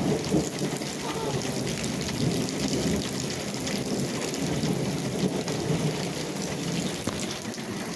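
Steady rain falling and pattering on surfaces, a dense even hiss of drop hits, with a faint short chirp about a second in.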